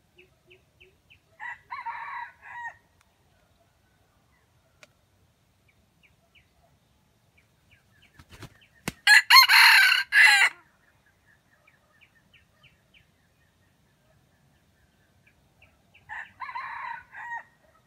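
Junglefowl rooster crowing three times: a quieter crow about a second and a half in, a loud close crow about nine seconds in, and another quieter crow near the end. Faint short chirps repeat between the crows.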